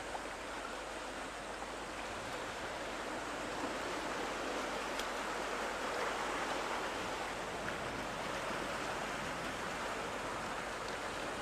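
Sea surf washing against a rocky shore: a steady rushing wash that swells a little around the middle.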